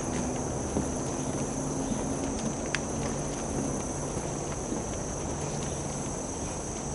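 Steady high-pitched chorus of insects droning without a break, over a low steady hum. Light scattered clicks of footsteps on a boardwalk, with one sharper tick about three seconds in.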